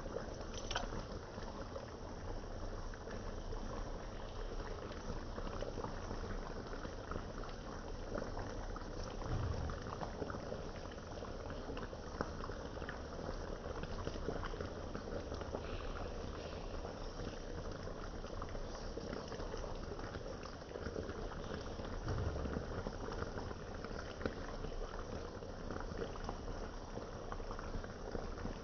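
Beef and broccoli in a brown sauce bubbling and crackling steadily in a black skillet on the stove, with a couple of soft low bumps.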